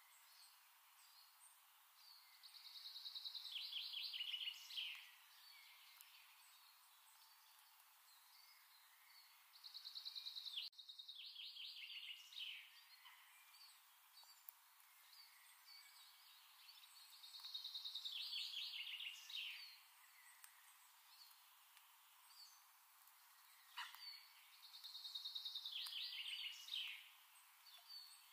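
A songbird sings the same trilled phrase four times, each phrase about two and a half seconds long and ending in a quick flourish, over a faint steady hiss.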